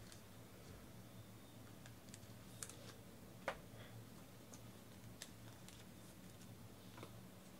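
Near silence: a low steady hum with scattered faint clicks and taps, the sharpest one about three and a half seconds in.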